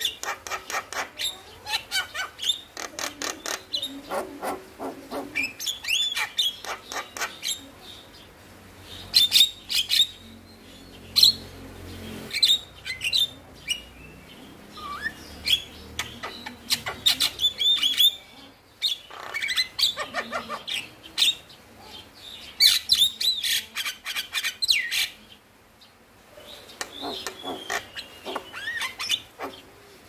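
Male Javan myna singing vigorously: rapid runs of short, sharp whistled and chattering notes in bursts with brief pauses between them.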